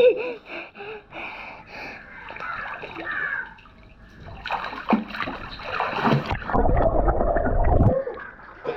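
Water splashing and sloshing in an inflatable pool as a child swims and ducks under, heard with the microphone at the water's surface. Quieter in the first half, then a heavy, deep churning of water from about halfway to near the end.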